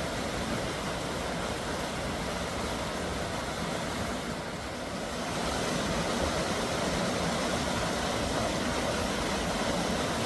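Steady rushing of a mountain stream or waterfall, a continuous even noise that grows a little louder about halfway through.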